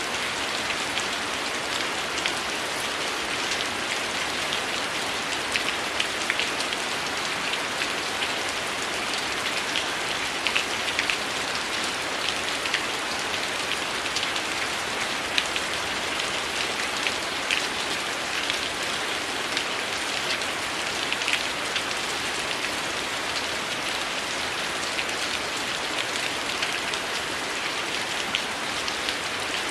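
Heavy rain falling steadily, an even hiss with many small sharp ticks scattered through it.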